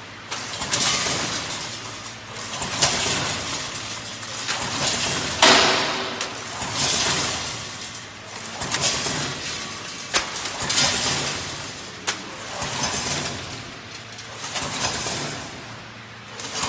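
Vertical form-fill-seal packing machine with a multi-head weigher bagging hard candies, in a cycle of about one bag every two seconds. Each cycle is a clattering rush of candies dropping through the weigher's chute into the bag, with sharp clicks from the machine between the rushes.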